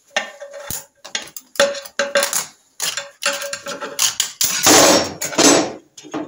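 Steel screwdriver tip clicking and scraping against the steel circlip and pressure plate of a Norton Commando clutch as the large circlip holding the diaphragm spring is prised out of its groove. There is a longer, louder scrape about four and a half seconds in as the circlip is worked free.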